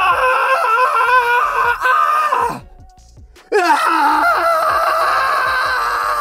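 A man screaming into a studio microphone, two long held screams of about three seconds each with a short break between: an acted scream recorded for a cartoon character's voice.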